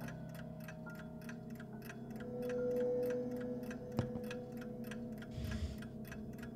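Yantar mechanical chess clock ticking fast and evenly, about five ticks a second. A sustained low tone swells and fades about two to three seconds in, and a single sharp knock comes about four seconds in.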